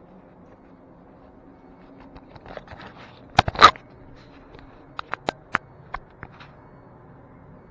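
Handling noises: rustling, then one loud sharp clack about three and a half seconds in, followed by a quick, uneven run of about seven short sharp clicks.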